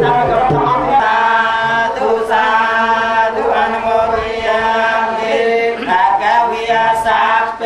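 Buddhist chanting, voices holding long, fairly steady notes.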